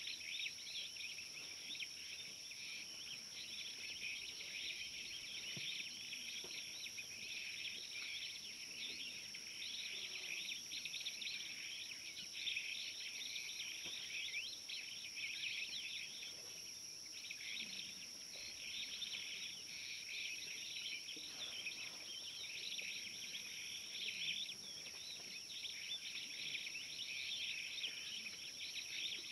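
Insects chirring, a dense shimmering chorus with two thin steady high tones above it.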